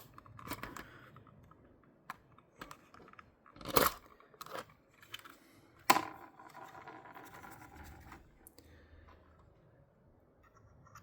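Small clicks, taps and scrapes of hand work on a drone's plastic motor housing while a motor bearing is pushed to seat it. Two sharper clicks come about four and six seconds in, with a brief faint scraping after the second.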